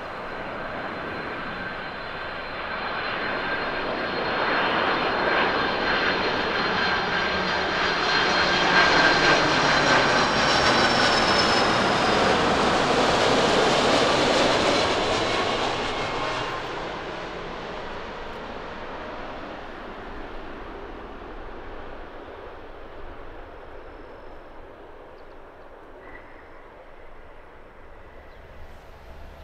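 Jet engines of a four-engine Boeing 747-400 freighter passing low overhead on landing approach: a rumble with a high fan whine that swells to a peak about ten to fifteen seconds in, then fades away. The whine drops slightly in pitch as it passes.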